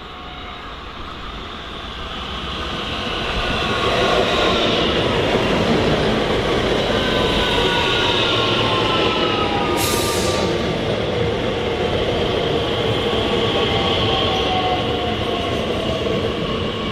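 A Bombardier Talent 2 (class 442) electric multiple unit running into the station and past close by, its rolling noise building over the first few seconds and then holding loud. Its traction drive whines, several tones falling slowly in pitch. A short hiss comes about ten seconds in.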